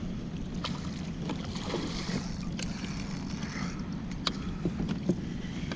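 Sounds of a kayak on open water: a steady low rumble of wind on the microphone and water lapping at the hull, with a few sharp light clicks and knocks at irregular moments.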